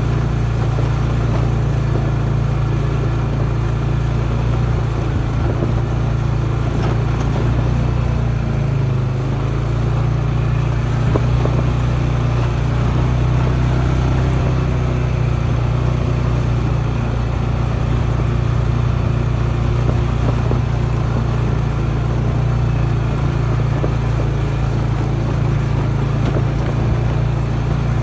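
Off-road vehicle's engine running steadily at low revs while descending a rough dirt trail.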